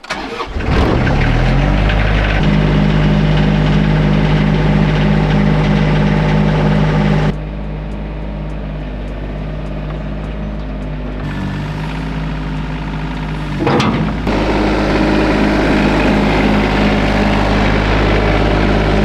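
Mini excavator's diesel engine running, coming in suddenly and building up over the first second or two, then running steadily. It drops in level for about six seconds midway, with a sharp knock as it comes back up.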